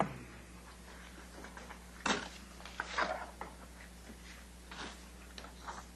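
Scattered light knocks and rustles, with a sharp click right at the start and a louder rustle about two seconds in, over a steady low electrical hum.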